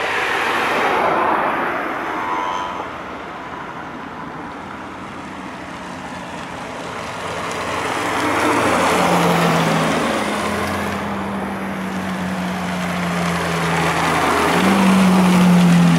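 Ferrari 458 V8 engines as the cars drive past one after another at low speed. The sound swells three times as each car goes by, with a steady engine note that steps up and down with the throttle in the later passes.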